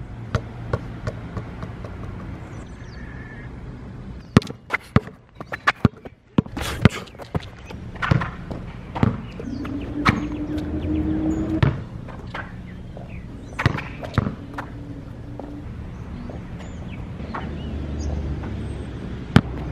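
Basketball being dribbled and bounced on an asphalt court: sharp, irregular bounces, several in quick succession a few seconds in, over a low steady background rumble.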